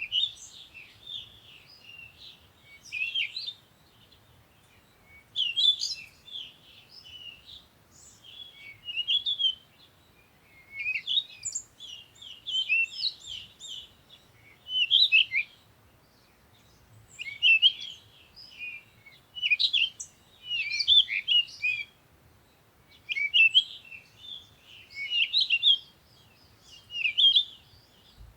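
Birdsong: high chirping phrases that come in groups every two to three seconds, with short pauses between them.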